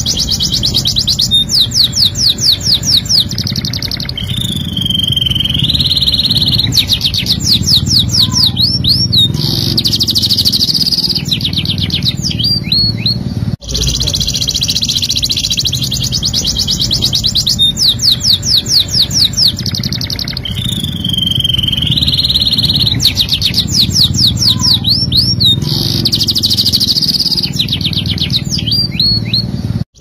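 Domestic canary singing a long, loud song of fast rolling trills and a held whistle, changing phrase every second or two. The same passage repeats after a brief cut about halfway through.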